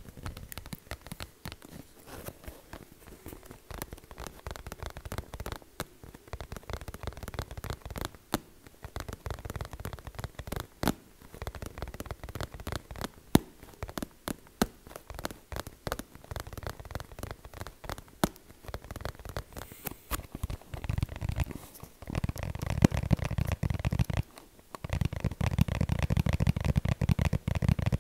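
Rapid, irregular tapping, many sharp taps a second, with stretches of a deeper rumbling layer under the taps. The tapping is loudest over the last several seconds, broken briefly near the end.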